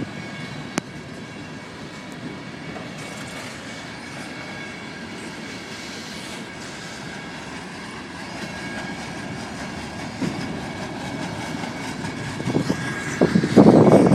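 Freight train cars rolling past: a steady rumble of wheels on rail with a clickety-clack and a faint, steady, high wheel squeal. A louder rush of noise comes near the end.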